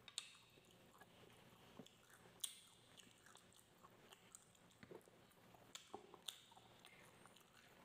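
Faint close-up mouth sounds of a man chewing a mouthful of rice and barbecued meat, with scattered sharp wet clicks, the loudest about two and a half seconds in.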